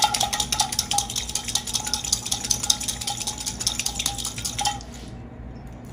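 A hard-boiled egg shaken with a little water inside a closed glass jar, knocking against the glass in fast rattling clicks as its shell is cracked and loosened. The shaking stops about four and a half seconds in.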